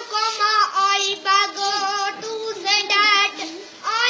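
A young child singing a melody in a high voice, holding notes and sliding between them in short phrases.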